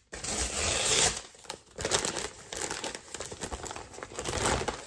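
A brown paper mailer envelope being torn open and crinkled by hand. The paper rustles loudest in the first second, then comes in shorter on-and-off crinkles.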